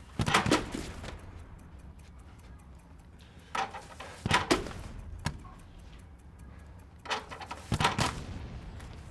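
Front-door letterbox flap clattering as post is pushed through it, in three bouts of knocks and rattles a few seconds apart.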